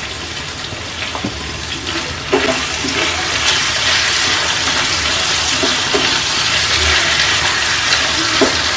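Raw banana slices sizzling in oil in a nonstick pan, the hiss growing louder from about two seconds in as a wooden spatula stirs and turns them, with a few light knocks of the spatula.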